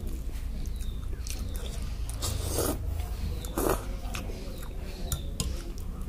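Someone eating Maggi instant noodles: wet chewing and small mouth clicks, with two louder slurps about two and a half and three and a half seconds in.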